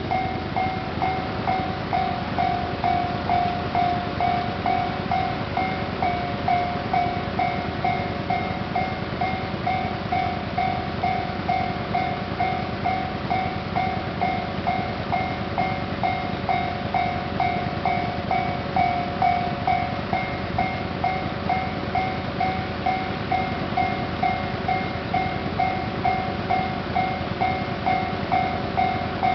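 Japanese railway level-crossing alarm ringing steadily, a repeated electronic ding at about two strokes a second, with train noise underneath.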